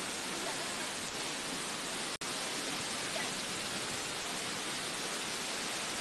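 Steady rushing of the Datanla waterfall, an even hiss of falling water. It cuts out for an instant about two seconds in.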